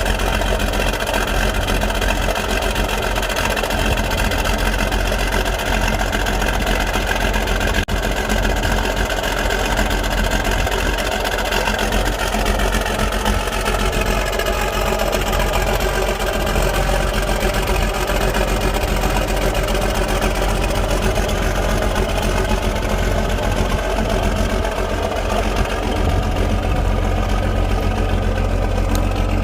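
A large vehicle engine running steadily, its pitch dipping slightly and recovering about halfway through.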